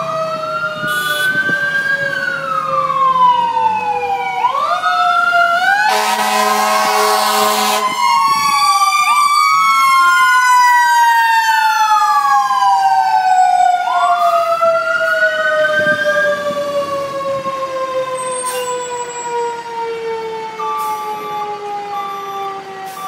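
Fire engine sirens wailing, several rising and falling tones overlapping, with a steady horn blast about six seconds in lasting about two seconds. After that one siren winds slowly down in pitch, and short repeated beeps come in near the end.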